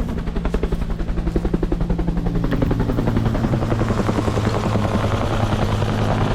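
Bell UH-1 "Huey" helicopter flying close by, its two-bladed rotor making a fast, steady blade slap over the turbine's low drone, growing slightly louder.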